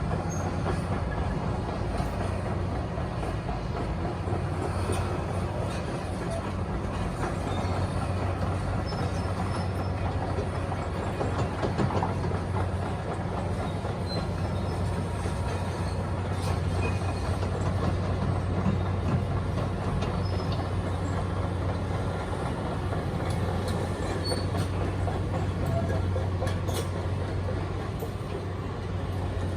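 Backhoe's diesel engine running steadily under load, with scattered knocks and clatter of demolition rubble being worked by the bucket.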